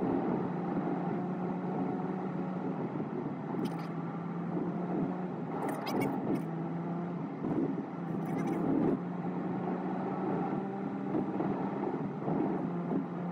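Car engine and tyre noise heard from inside the cabin while driving, a steady engine hum with the car pulling uphill on a few extra revs. A few faint short clicks come through now and then.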